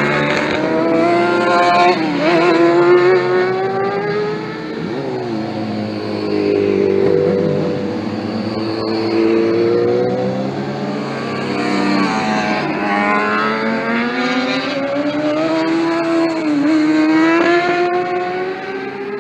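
Several sportbike engines at high revs passing on a race track, overlapping. Their notes climb as they accelerate through the gears, with short dips at the shifts, and fall away as they go by.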